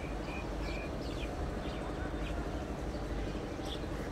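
Outdoor city ambience: a steady low rumble of distant road traffic, with birds giving scattered short, high chirps over it.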